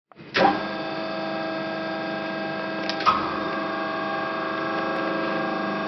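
Amada Promecam HFBO hydraulic press brake powering up from its key-switch panel: it comes on with a surge about a third of a second in and settles into a steady machine hum. About three seconds in, a click and a second surge as another stage switches in, and the hum runs on with an added higher tone.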